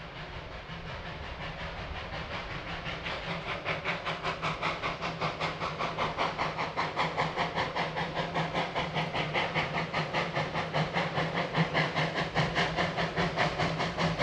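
Puffing Billy NA-class narrow-gauge steam tank locomotive chuffing as it works toward the listener, a steady, even beat of hissing exhaust that grows louder as it approaches.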